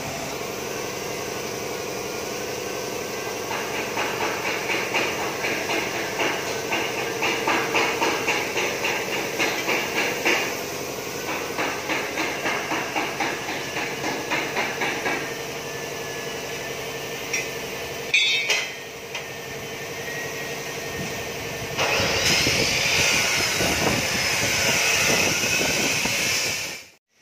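Metal being hammered in a bus body shop: a long series of sharp blows at about two to three a second, over a steady machine hum. Near the end a louder steady rushing hiss takes over.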